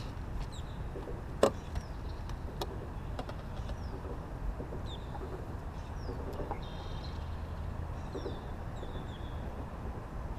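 Birds chirping in short, high, downward-sliding notes over a steady low rumble, with a sharp knock about a second and a half in.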